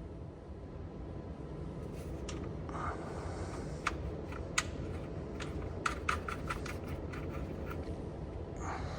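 Scattered light clicks and a brief scrape from parts and plastic pieces being handled and fitted in a skid loader's engine compartment, over a steady low background hum.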